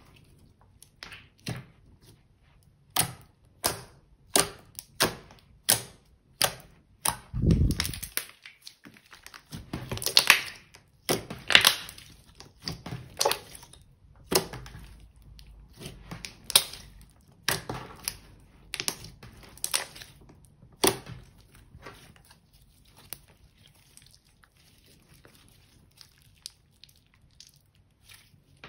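Glossy slime being kneaded, pressed and stretched by hand: a series of sharp, wet clicking pops, about one every half second at first and clustering thickest near the middle, then thinning to a few faint ones near the end.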